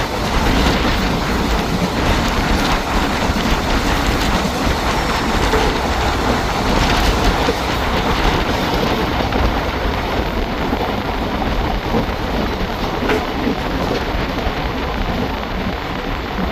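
Moving passenger train heard from an open coach door: a steady rumble of wheels on rail mixed with rushing air, and a few sharper clicks.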